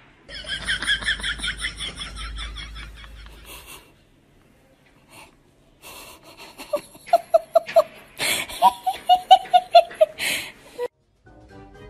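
Person laughing in bursts: a quick, high-pitched giggling run, then after a short pause two runs of lower, rhythmic laughter.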